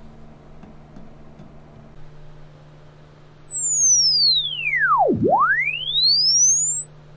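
Sine-sweep test tone played through a prototype iPod dock speaker to measure its frequency response. About two and a half seconds in, a pure tone glides down from very high to deep bass over about two and a half seconds, then sweeps straight back up.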